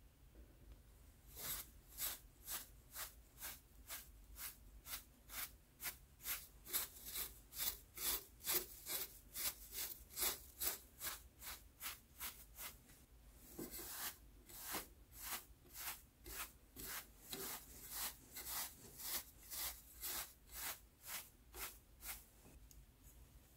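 Rhythmic scrubbing strokes on an Nvidia Quadro NVS 295 graphics card being cleaned, about two a second, with a short pause about halfway through.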